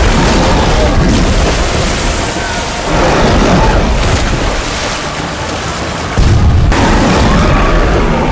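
Film sound effects of a shark attack: heavy water splashing and crashing with booming hits. The sound grows suddenly louder about three seconds in and again about six seconds in, as the shark leaps.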